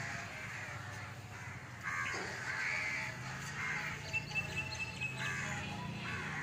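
Crows cawing several times, over a steady low hum.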